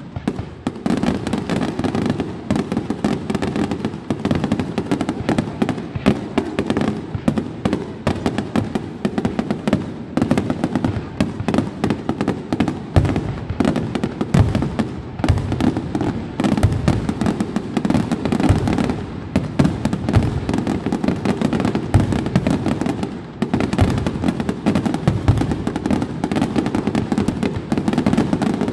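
Fireworks display in a dense barrage of aerial shell bursts, the bangs following each other many times a second without a break.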